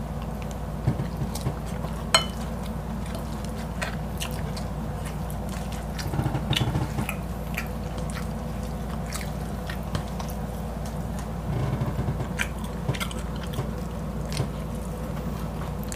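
Close-miked mouth sounds of people eating breaded fried chicken fillet, rice and fried noodles: biting and chewing, with scattered sharp clicks and a louder clack about two seconds in.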